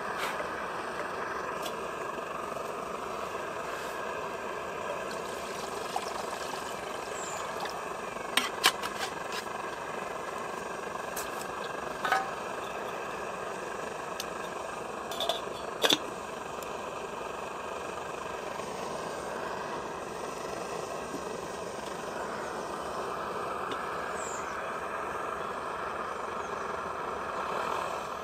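Svea 123R pressurised petrol stove burning with a steady rushing sound under a kettle. A few sharp clinks of metal cookware sound over it around the middle.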